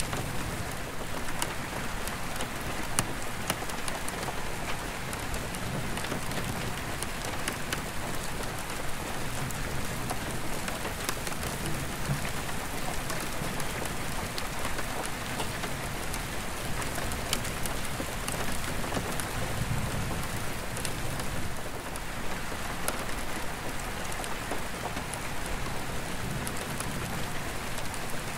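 Steady rain pattering on an attic skylight, with many sharp drop ticks on the glass. Distant thunder rumbles low in the background, swelling and fading every several seconds.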